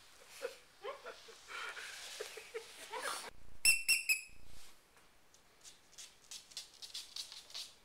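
Squeaky plush toy squeezed about three times in quick succession, giving sharp, high-pitched squeaks. This is followed by the light clicking of a puppy's claws on a wood floor as it runs after the toy.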